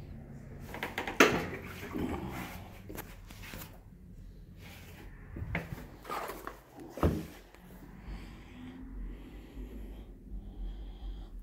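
A person with a cold sniffing and snorting, with a few sharp knocks, the loudest about a second in and two more around six and seven seconds.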